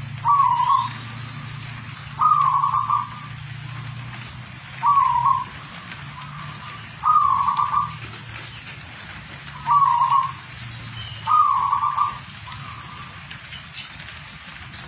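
Zebra dove (perkutut) in full song: six short cooing phrases come at uneven gaps of about one and a half to two and a half seconds, over a faint steady hiss.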